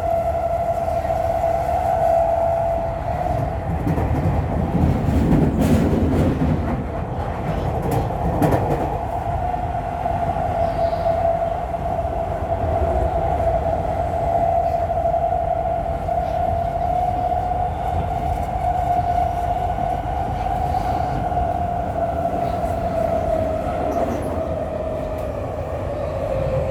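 Tokyu 5050 series electric train running, heard inside the motor car: a steady whine from the traction motors and gears over the rumble of wheels on rail, with a few sharp knocks around six and eight seconds in. Near the end the whine falls slightly in pitch as the train slows.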